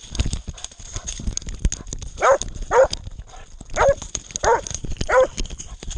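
Hunting dog barking five times in quick, short barks during the second half, over a steady clatter of knocks and rustles.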